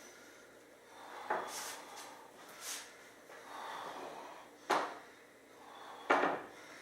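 Bench parts knocking and clunking as they are handled and fitted together: several separate sharp knocks, the loudest near the end.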